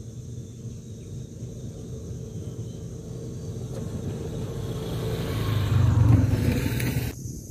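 A motor vehicle's engine rumbling, growing louder to a peak about six seconds in; the higher noise cuts off abruptly just before the end.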